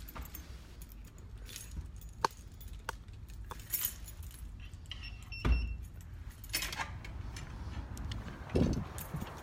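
Handling noise from a hand-held phone being carried: scattered clicks and rustles of clothing and fingers on the phone, with a heavier thump about halfway through.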